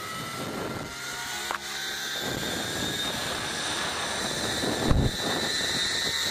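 Zipline trolley pulleys running along the steel cable: a whine that climbs slowly in pitch and grows louder as the rider gathers speed. A heavy rumble of wind on the microphone comes about five seconds in.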